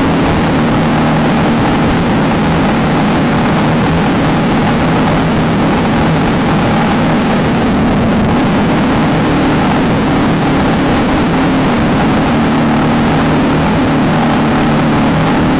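Off-road race vehicle's engine running hard at a steady, unchanging pitch, under a constant noisy rush.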